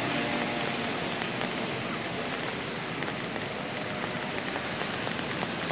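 A steady, even hiss with no clear rhythm or pitch.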